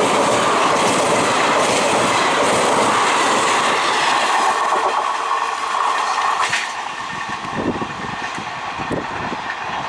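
Express train's ICF passenger coaches running past close by at high speed: a loud rush with the wheels clattering over the rail joints. The noise falls away about six and a half seconds in, leaving a quieter rumble as the train draws away.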